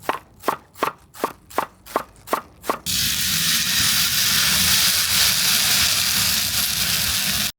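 About eight even knocks, two or three a second, then a steady loud sizzle of food frying on a hot plate that cuts off suddenly.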